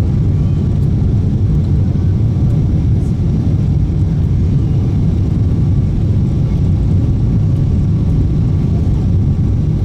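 Steady low roar inside the cabin of a Boeing 777-300ER airliner: engine and airflow noise, even and unbroken.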